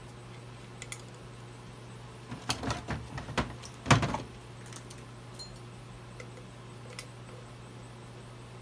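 Handling clatter of metal trolling-motor parts and tools as the brush end is fitted back onto the armature: a run of clicks and rattles with a heavier knock about four seconds in, and a few light ticks after.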